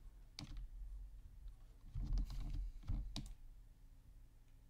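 A handful of sharp computer mouse clicks, spread unevenly: one about half a second in, a small cluster near the middle and two close together a little later.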